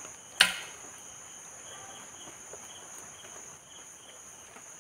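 A hand hoe chops once into loose soil about half a second in, a single sharp thud. A steady high insect drone runs under it.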